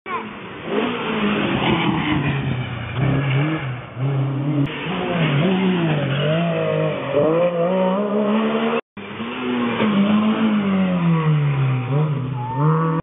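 Rally cars passing at speed, their engines revving up and dropping back again and again through gear changes. A short break in the sound about nine seconds in, then another car passes.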